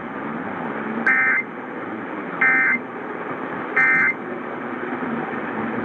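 Emergency Alert System End of Message over AM radio: three short, identical digital SAME data bursts, the warbling 'NNNN' code, each about a third of a second long and about 1.3 s apart. They mark the end of the severe thunderstorm warning and sit over the steady hiss of AM reception.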